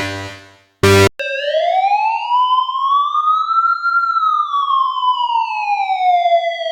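A single slow siren wail, a clean electronic tone that rises in pitch for about three seconds and falls for about three. It follows background music that fades out in the first second and a brief snatch of music.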